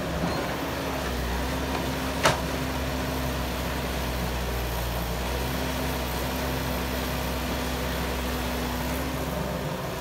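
Caterpillar excavator's diesel engine running steadily under load as it swings and digs, with a single sharp knock about two seconds in.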